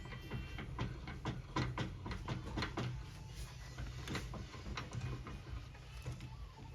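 Irregular clicks and light knocks, several a second and thinning out after about three seconds, over a steady low hum: hand work on metal parts.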